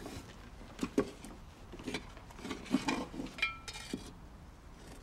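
Knives working leather hides on a wooden workbench: scattered small clicks, scrapes and clinks of blades and tools, with a cluster of knocks around the middle and a short high squeak about three and a half seconds in.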